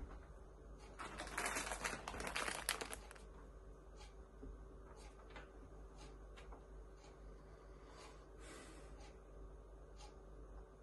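A plastic packet crinkling and rustling for about two seconds, then scattered light clicks and taps, with a softer rustle near the end.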